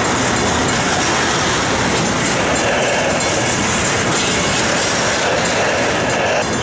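Loaded freight cars of a BNSF steel-slab train rolling past, a steady loud clatter of steel wheels on the rails.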